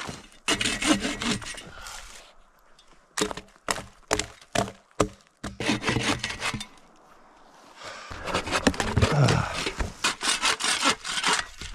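Bow saw cutting through a felled tree trunk with rapid back-and-forth strokes, in three spells with short pauses between.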